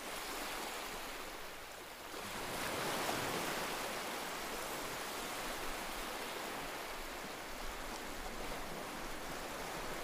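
Ocean surf washing onto a beach: a steady hiss of breaking waves that swells a little about two to three seconds in.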